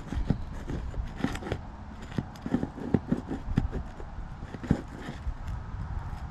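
A metal roof snake knocking and scraping against asphalt shingles as roofing nails are worked loose: an irregular run of short knocks and scrapes.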